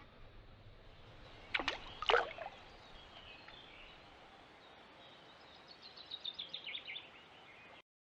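Faint outdoor ambience by a small river, with two short sharp chirps about a second and a half in and a rapid trill of high chirps near the end, typical of a small songbird.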